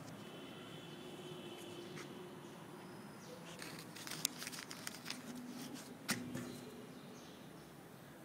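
Faint, quiet hall ambience, broken about halfway through by a cluster of clicks and taps, two of them sharper and louder: handling noise as a hand touches and grips the camera phone.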